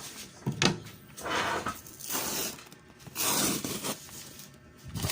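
Heavy packaging wrap being torn open and crinkled: a couple of sharp clicks, then three rasping bursts of about half a second each.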